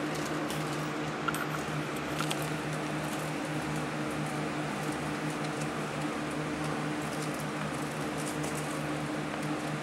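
Electric fans running: a steady hum under a constant rush of air. A few faint light clicks sound over it, about a second in and again near the end.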